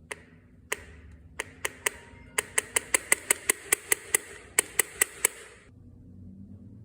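Yamaha Banshee's twin carburetor throttle slides snapping shut as the throttle is worked by hand: a string of sharp clicks, a few spaced out at first, then a quick run of about five a second, a brief pause and a few more. The two slides are freshly synchronised to close together.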